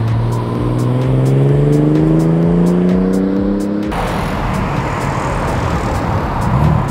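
Ford EB Falcon Fairmont accelerating away, its engine note rising steadily in pitch. About four seconds in it cuts off suddenly to the rushing tyre and engine noise of the car driving past.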